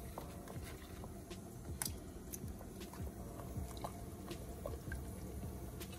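Cabbage leaves being handled in a pot of boiling water: quiet wet squishing and dripping with scattered small clicks.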